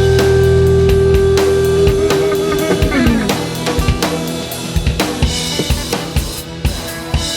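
Background rock music with a drum kit beat; a held note slides down in pitch about three seconds in.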